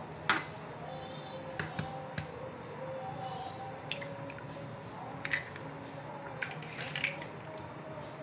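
Eggs being cracked by hand on the rim of a small bowl: several sharp taps and shell cracks, with light clinks of the bowl, over a steady low hum.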